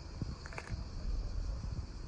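Outdoor ambience: a steady high chirring of insects with a low wind rumble on the microphone, and a brief high chirp about half a second in.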